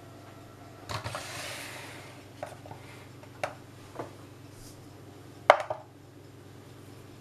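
A few small knocks on a wooden board, the loudest about five and a half seconds in as a bowl is set down on it, after a short rustle about a second in.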